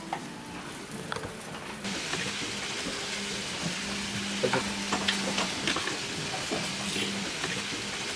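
Food frying in a pan: a steady sizzle with scattered crackles and pops, over a low steady hum.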